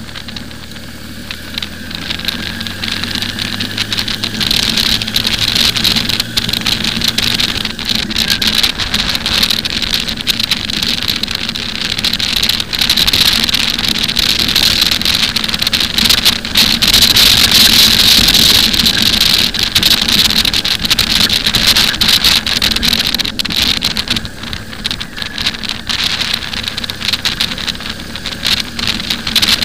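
Wind buffeting the microphone of a camera mounted on a moving motorcycle, a loud rushing that grows louder a couple of seconds in as the bike gathers speed. The motorcycle's engine hums low underneath, clearest near the start.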